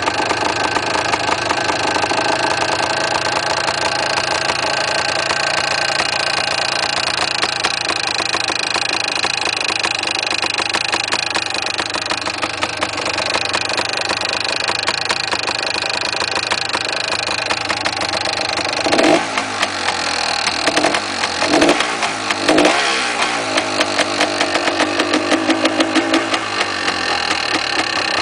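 Yamaha DT400 two-stroke single-cylinder engine idling with a rattle, then blipped several times from about two-thirds of the way in. The owner suspects the rattle comes from inside the engine.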